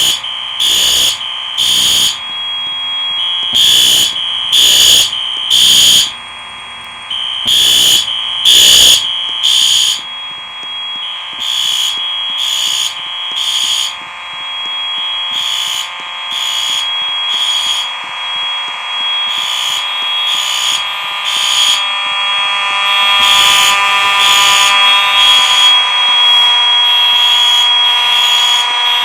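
Fire alarm horns of a mixed Simplex school system sounding during an alarm test. One set of horns pulses in a three-blast temporal pattern, fainter midway and louder again near the end, over a continuous steady horn tone underneath.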